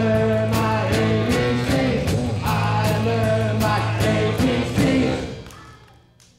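Live rock band playing an improvised song with electric guitars and drums, with a voice singing over it; the music fades out about five seconds in.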